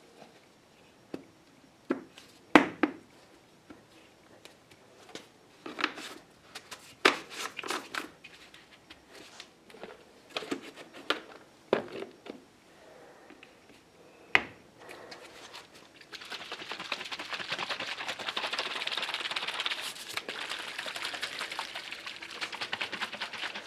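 Plastic clicks and knocks as a disposable spray-gun cup and its lid are fitted and handled, then, from about two-thirds of the way in, several seconds of steady rattling as the lidded cup of mixed epoxy primer is shaken.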